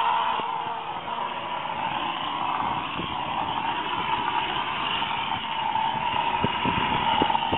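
Stucco spraying equipment running steadily: a motor's drone under the hiss of stucco being sprayed from a hose nozzle onto a wall, with a few short knocks near the end.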